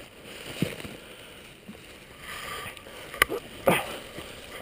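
Dry leaves rustling and crunching and gear knocking as an airsoft player shifts position on the forest floor, with sharp knocks about half a second in and twice more a little past the three-second mark.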